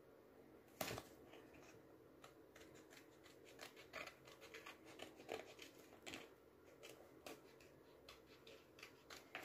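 Scissors snipping through paper in a run of short, faint, irregular cuts, with paper rustling between them. One sharper click comes about a second in.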